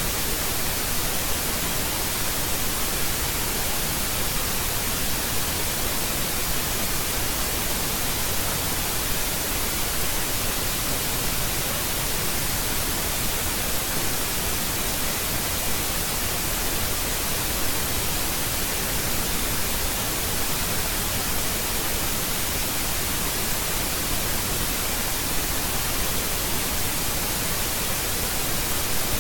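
Steady, even hiss of static noise, strongest in the high end, with nothing else standing out of it.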